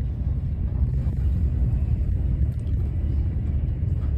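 Steady low rumble of a moving SBB passenger train, heard from inside the carriage.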